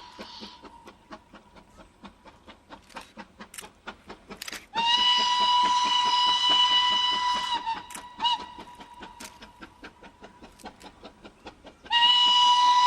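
Steam locomotive whistle sounding a steady, single-pitched blast of about three seconds, then a short toot, then another long blast starting near the end. Between the blasts, a run of sharp clicks.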